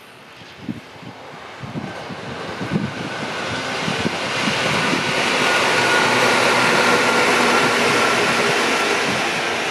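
Electric multiple-unit local train passing on the line. Its rushing rumble swells over about five seconds as it approaches, peaks, then eases slightly as the cars run by, with a faint steady whine in it.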